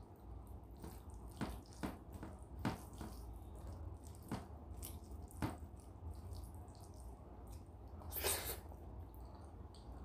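Wet eating sounds of rice and dal eaten by hand: chewing with several sharp lip smacks, and the squelch of rice being mashed into dal with the fingers, with a longer wet rush about eight seconds in.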